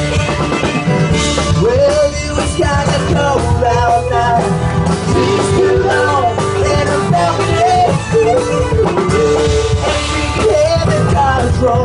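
Live band playing loudly, with fiddle, guitar and drums.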